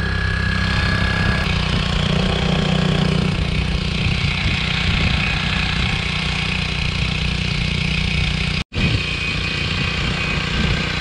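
Small outboard motor running steadily, pushing an inflatable boat along, with water rushing past the hull. The sound drops out for an instant near the end, then goes on as before.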